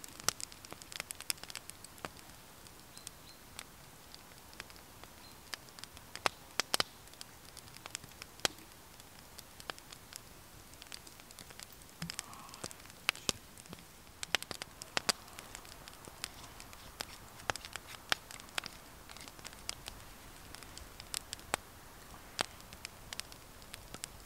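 Small wood fire crackling in a BondStove Mini twig stove, with irregular sharp pops and snaps throughout.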